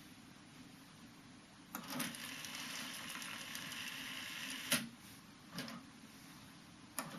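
Aiwa GX-Z7100EV cassette deck transport: a click, then about three seconds of tape winding at speed that ends in a clunk as the mechanism stops, followed by two more sharp clicks of the transport.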